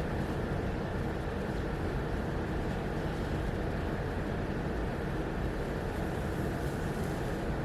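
Steady low background rumble of room noise, unchanging throughout, with a few faint high rustles near the end.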